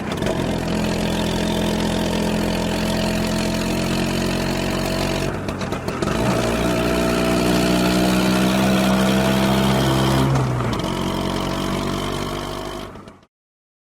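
Motor scooter's small engine running steadily. From about six seconds in it gets a little louder with the pitch slowly creeping up, then eases back near ten seconds. The sound cuts off abruptly just before the end.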